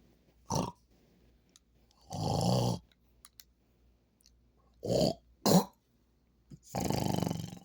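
A man snoring in separate bursts: a short one, a longer snore about two seconds in, two quick short ones around five seconds, and another long snore near the end.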